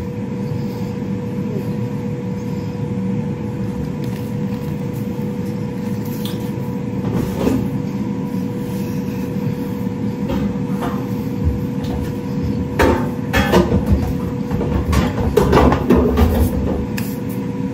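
Steady hum of a running kitchen appliance, holding one constant tone, with scattered knocks and clatter in the second half.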